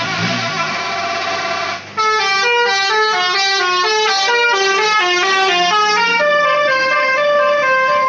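Bus 'telolet' multi-tone air horn playing a fast tune of stepped notes that jump up and down, loud, for about six seconds before cutting off suddenly. Before it, after a brief drop about two seconds in, a denser blend of many tones sounds.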